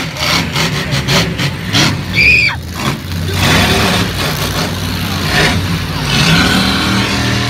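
Monster truck engine running hard and revving as the truck drives and jumps over a pile of crushed cars, with a brief high squeal about two seconds in.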